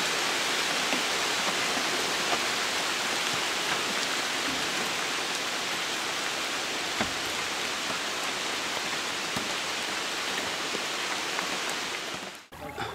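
Heavy rain falling on a river's surface: a steady, even hiss of countless drops striking the water, which stops abruptly near the end.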